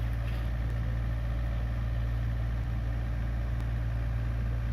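Komatsu PC45 mini excavator's diesel engine running steadily.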